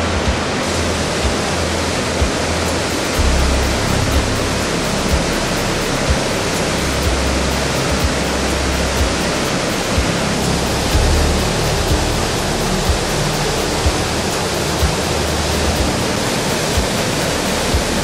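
Steady rush of the Rhine Falls, white water pouring over rocks. Background music sits under it, with low bass notes and a soft beat about once a second.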